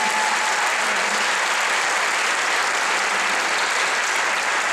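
Audience applauding, a steady dense wash of clapping.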